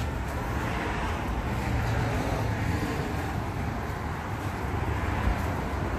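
Steady noise of traffic passing on a busy highway.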